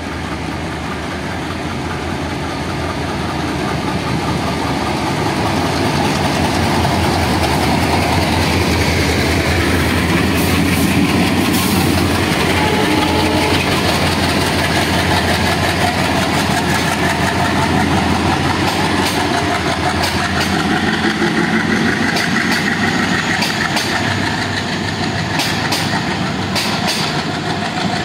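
A pair of ALCo diesel locomotives working under power as they haul a passenger train past, the engine sound growing louder over the first few seconds as they come near. After the locomotives pass, the coaches roll by, with wheel clicks over the rail joints in the last several seconds.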